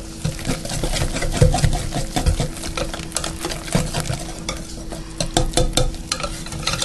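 Wire whisk beating pancake batter in a glass measuring bowl: quick, irregular ticks of the wires against the glass over a wet stirring sound.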